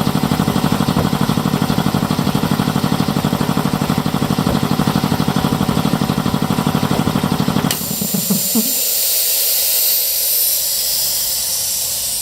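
Speedaire 1WD71 10 HP two-stage air compressor pump running with a fast, even pulse, then shutting off abruptly about two-thirds of the way in. A high hiss follows as air blows off through the pressure-switch unloader once the tank reaches its cut-out pressure.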